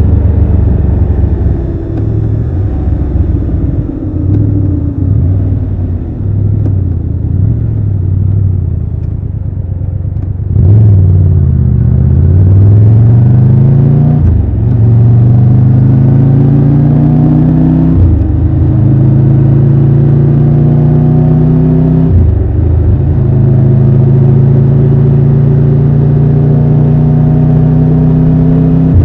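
Triumph Tiger 1200 Rally Pro's three-cylinder engine pulling away, heard from the rider's seat. It runs softly and unevenly at first, then about ten seconds in it gets louder and rises in pitch through the gears, with three upshifts at roughly four-second intervals, before settling to a steady cruise.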